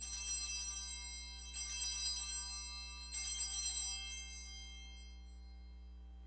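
Altar bells rung three times at the elevation of the chalice, each bright, high ring fading before the next; the last dies away about four and a half seconds in. The ringing marks the showing of the consecrated chalice after the words of consecration.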